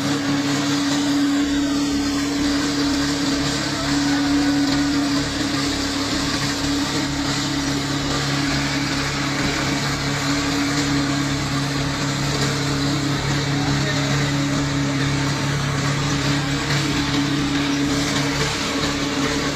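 Brick-making machine running steadily: a constant motor hum with a mechanical noise over it, unchanging throughout.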